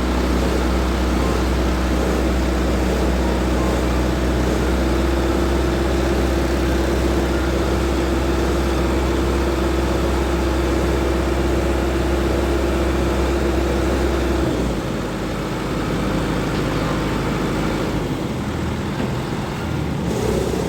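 Diesel engine of a Hydra pick-and-carry crane running steadily under load, with a steady whine over it. About fourteen seconds in, the engine and whine drop back to a lower, quieter running.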